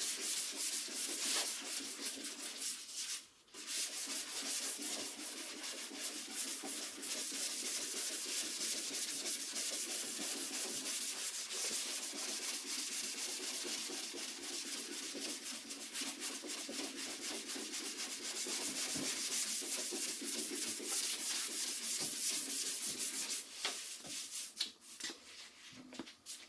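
Sandpaper on a hand sanding block being rubbed back and forth over the primer and guide coat of a car's quarter panel, in steady rasping strokes. There is a brief pause about three seconds in, and the strokes become uneven and die away near the end.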